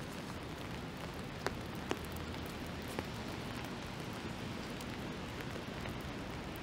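Steady rain, an even hiss, with a few sharper single drop ticks.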